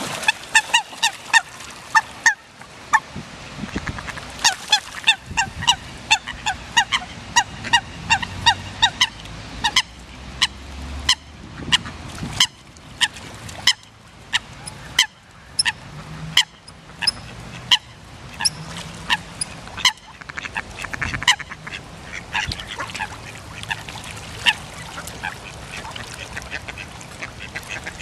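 A flock of mallards and coots calling around a pond's edge: a long run of short, sharp calls, often several a second, thinning out to occasional calls near the end.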